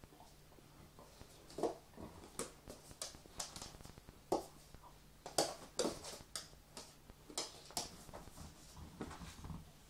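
Two dogs, a vizsla and a weimaraner, play-wrestling on a dog bed: irregular scuffling with sharp knocks and clicks scattered throughout, the loudest about halfway through.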